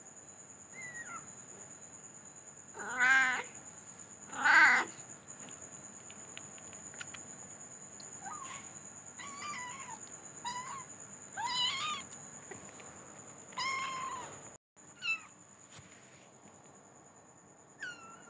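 Domestic cat and kittens meowing: two loud, drawn-out meows about three and four and a half seconds in, then a string of shorter, higher-pitched meows.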